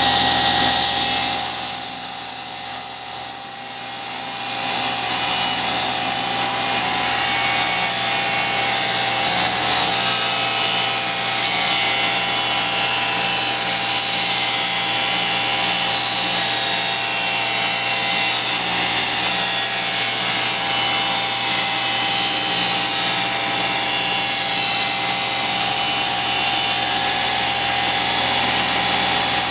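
Cabinet table saw running steadily while ripping a thin strip of wood along the fence. A high whine sounds for a few seconds near the start.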